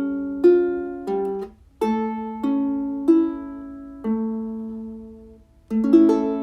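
Ukulele played slowly, one chord plucked about every half second to second, each left to ring and fade, with two short breaks between phrases.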